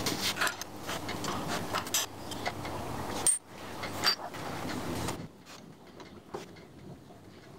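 Milling machine running and cutting metal, a steady mechanical noise with a low hum and scattered sharp clicks. It stops about five seconds in, and only faint workshop noise remains.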